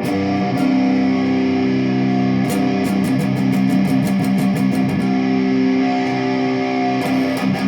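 Jackson Dinky electric guitar played through an amp, with a 104J (0.1 µF) capacitor on its tone control: chords ring out and change a couple of times, with repeated picked attacks.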